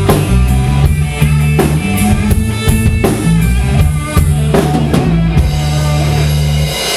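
Live band playing: drum kit with a steady beat, electric guitar and electric bass, with no singing. The bass and drums stop near the end.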